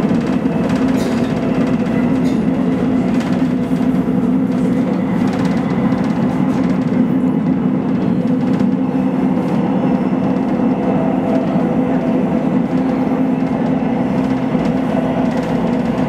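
Steady running noise of a Korail 391000-series electric train at speed, heard from inside the car: an even low rumble with a few light clicks from the rails in the first seconds.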